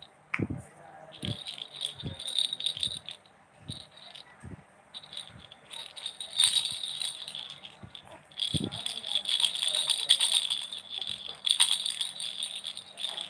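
A pink plastic baby rattle shaken by hand, its loose beads giving a fast, high, jingly rattle in bursts. The shaking is sparse at first and becomes busier and louder from about six seconds in, with a few soft low knocks between bursts.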